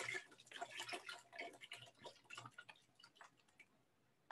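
Chicken stock poured from a carton into a stainless-steel pot of stew: faint, irregular glugging and splashing ticks that fade out near the end.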